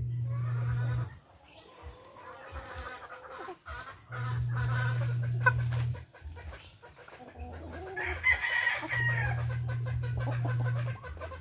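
A flock of heritage chickens clucking while feeding, with a louder drawn-out call about eight seconds in. A low steady hum comes and goes in three stretches of about two seconds each.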